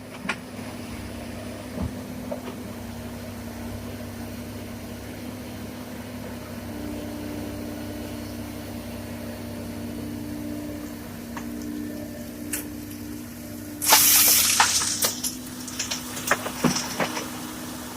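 Komatsu PC200 hydraulic excavator's diesel engine running steadily. About two-thirds of the way in there is a loud crash of rock pouring from the bucket, then a few seconds of scattered stones clattering.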